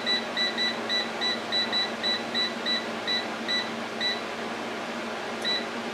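Power AirFryer Oven touch panel beeping at each press as the cook time is stepped down to 5 minutes: a quick run of short, high beeps about three a second that slows and stops about four seconds in, then one more beep near the end. A steady low hum runs underneath.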